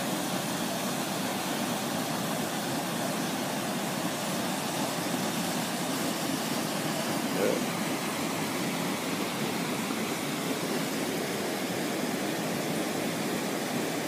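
Steady rushing of a small waterfall and stream running over rocks.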